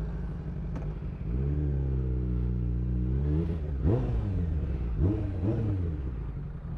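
Sportbike engine ticking over, then pulling away under throttle about a second in, holding steady revs before easing off. Around four and five seconds in the revs rise sharply in quick throttle blips.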